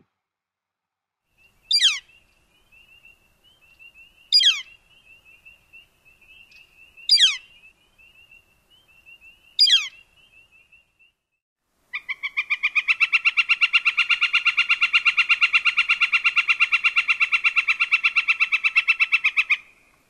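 Northern flicker calls: four loud, downward-slurred "kleer" call notes about two and a half seconds apart, then a long, rapid, even series of "ki-ki-ki" notes lasting about eight seconds.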